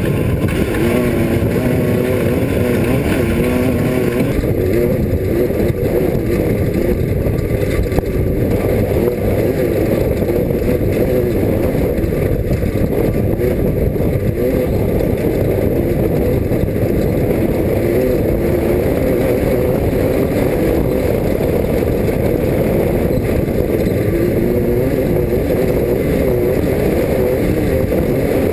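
Class 5 off-road race car engine running hard, its pitch rising and falling continually as the throttle and gears change.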